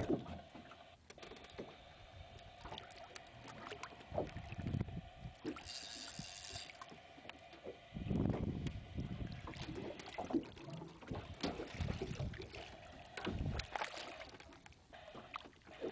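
Water lapping and sloshing against the side of a small boat, with low buffeting bumps and a steady hum underneath. A brief high whir comes about six seconds in.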